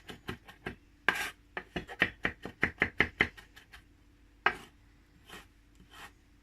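Kitchen knife chopping on a cutting board in quick, even strokes, about four a second, then a few single chops near the end.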